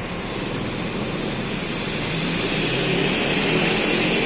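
Steady rumble of a motor vehicle's engine, growing slowly louder.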